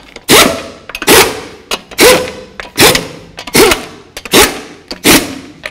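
Cordless impact wrench fired in seven short bursts, about one every 0.8 seconds, running a car's lug nuts down until they seat against the wheel in a star pattern.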